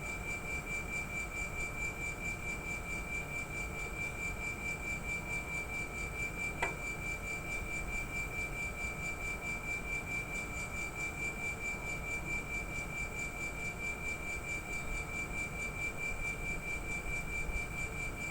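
Air-conditioner outdoor-unit compressor giving off a steady high-pitched whine, with fainter tones above and below it over a low hum: the abnormal compressor noise. A brief click comes about six and a half seconds in.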